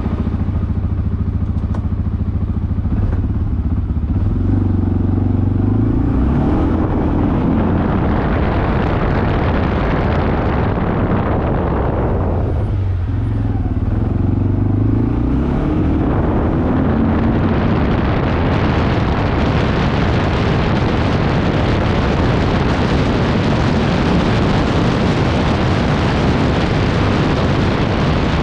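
ATV engine running while riding, the engine note climbing a few seconds in, dropping away briefly around the middle and climbing again. In the second half a steady rushing noise takes over.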